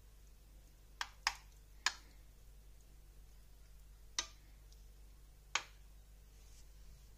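Metal spoon clicking against a nonstick frying pan while stirring diced tomatoes: five sharp taps, three close together in the first two seconds, then two more further apart.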